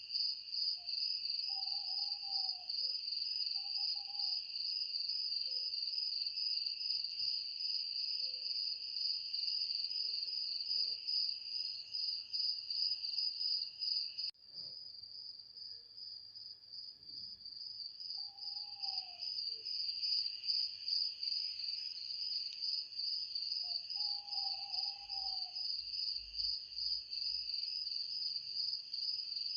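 A steady chorus of crickets chirring in a fast pulsing trill, with a few short, lower calls scattered through it. About halfway, one part of the chorus drops out for a few seconds, then comes back.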